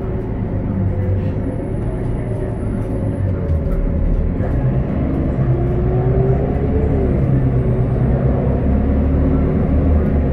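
Cummins ISL 8.9-litre diesel engine and six-speed Allison automatic of a Bonluck Citystar bus, heard from inside the passenger cabin while driving: a steady drone that turns deeper and a little louder about four seconds in as the bus pulls. A whine rises and then drops near the middle.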